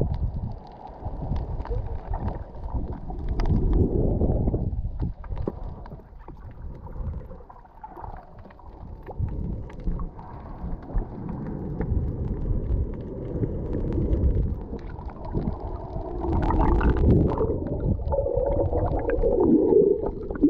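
Muffled underwater rumble of moving water and bubbles heard through an underwater camera, with scattered small clicks and knocks; it swells louder near the end.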